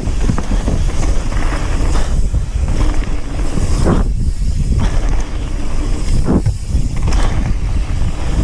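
Mountain bike riding down a bike-park trail: tyre and frame noise over rough ground, with wind buffeting the microphone and a few short sweeping surges about every two seconds.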